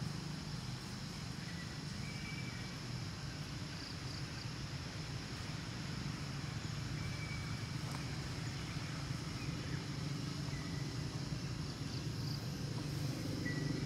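Steady outdoor background: a low rumble with a constant high-pitched drone over it and a few brief, faint high chirps. It grows slightly louder near the end.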